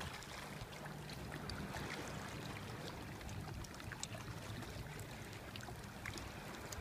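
Steady wash of gentle sea water against a rocky shoreline, with a faint low hum underneath and a few faint ticks.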